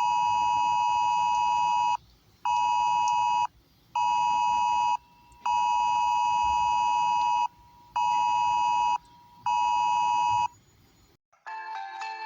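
Taiwan's national-level emergency alert (國家級警報) sounding on a mobile phone. It is the wireless emergency alert attention tone, a loud two-tone beep in a long-short-short cadence (about 2 s, 1 s, 1 s), repeated twice, warning of a strong earthquake. It cuts off after about eleven seconds, and a chiming melody starts near the end.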